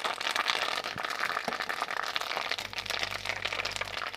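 Fresh curry leaves sizzling and crackling in hot frying oil as they are dropped into the pan, a dense run of fine spitting pops.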